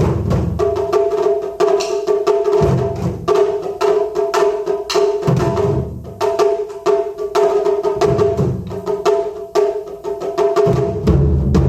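Taiko drum ensemble playing: many quick, sharp stick strikes over deep drum booms that come and go in sections, with a held pitched tone running underneath. The sound starts suddenly out of silence.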